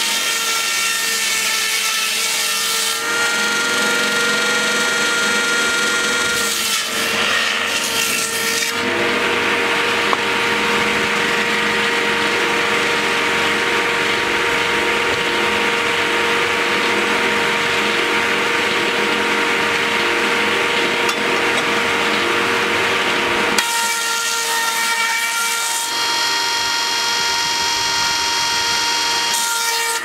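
Large circular saw blade on a small sawmill breast bench, driven by a 5.5 kW three-phase electric motor, running with a steady hum while ripping radiata pine boards. The cutting noise changes in character several times as the boards are fed through.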